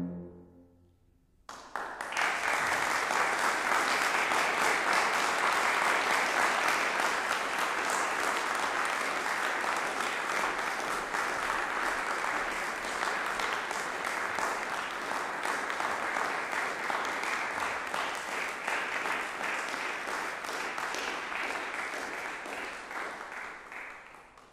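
Audience applause in a hall: the last chord of tubas and piano dies away, and about a second and a half in clapping starts all at once, holds steady, and fades out near the end.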